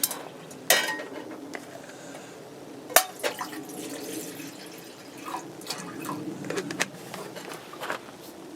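Liquid sounds with a few light clinks and knocks of metal camp cookware being handled, one sharper knock about three seconds in and a run of small clinks later.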